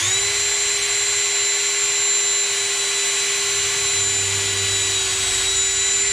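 Electric drill spinning up and running at a steady speed for about six seconds with a high whine, boring a pilot hole into wood, then cutting off.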